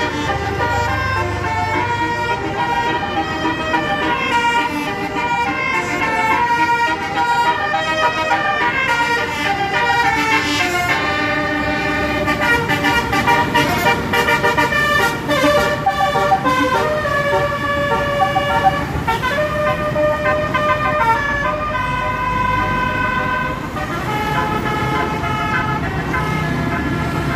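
Bus basuri horn playing a melody: loud held notes stepping from pitch to pitch, with a few sliding glides between them, over a low rumble.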